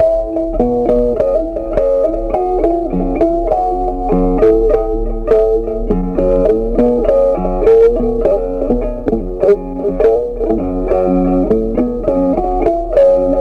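Background instrumental music: a picked melody of short stepped notes over a bass line, with a steady beat.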